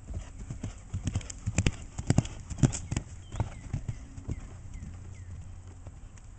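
A horse's hooves cantering on grass over small jumps, a run of hoofbeats with the heaviest thuds clustered about two to three seconds in, then lighter strides as it canters away.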